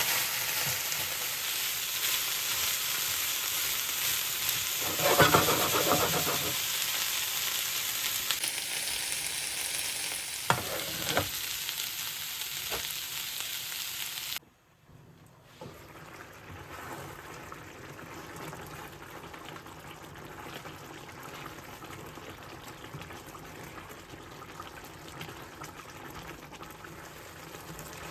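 Food sizzling in hot oil in a frying pan, with a louder swell about five seconds in and a few sharp knocks of a utensil against the pan around ten to eleven seconds. About halfway through the sizzle cuts off abruptly, and a much quieter steady hiss takes over.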